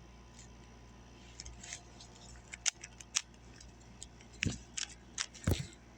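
3x3 Rubik's cube being turned fast during a solve: irregular plastic clicks and clacks of the layers, a few louder clacks near the end.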